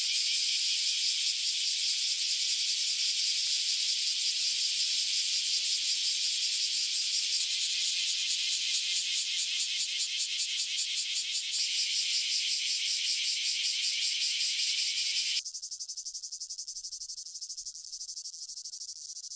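Cicadas calling: a loud, shrill, continuous buzz with a rapid pulse. Near the end it switches abruptly to a quieter, thinner buzz.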